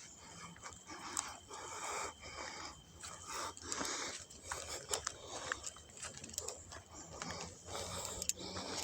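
Close breathing and rustling as someone moves on foot through dry vegetation, in uneven swells about once a second with scattered light clicks and crackles.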